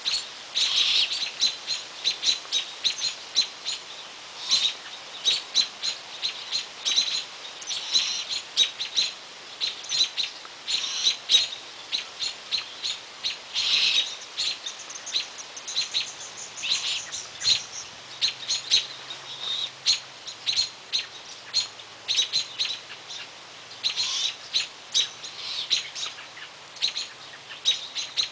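Small birds chirping: a dense run of short, high-pitched chirps, several a second, repeating without pause.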